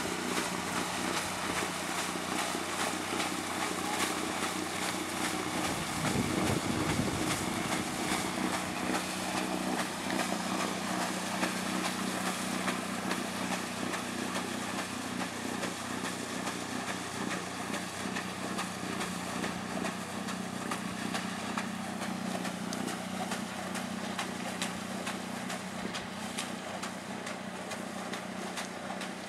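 Small engine of a stern-paddlewheel pontoon boat running steadily as a low, even hum, easing off slightly toward the end. A brief louder rush comes about six seconds in.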